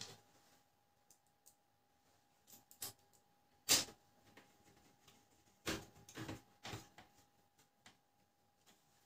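Scattered light clicks and knocks of plastic printer parts being handled and fitted, one sharper knock a little under four seconds in and a quick run of three or four about six seconds in.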